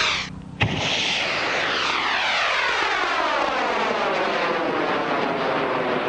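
M1939 high-power rocket motor roaring as the rocket climbs away, with a sweeping, falling whoosh running through the noise. The sound breaks off for a moment just after the start and comes back abruptly.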